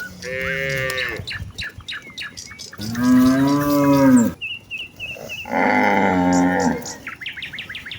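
Cows mooing: three long moos of about a second and a half each, the middle one the loudest with its pitch rising and falling.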